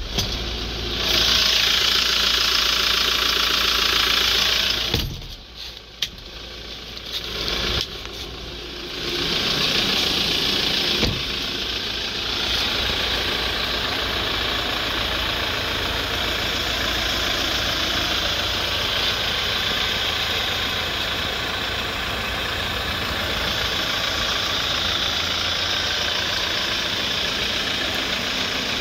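Hyundai Porter II's four-cylinder CRDi diesel engine idling steadily, with a hiss over it; the sound drops low for a few seconds shortly after the start.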